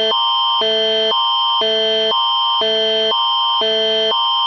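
Canadian emergency alert attention tone (Alert Ready) as used for an earthquake warning: a loud electronic alarm that switches back and forth between a higher and a lower chord about every half second.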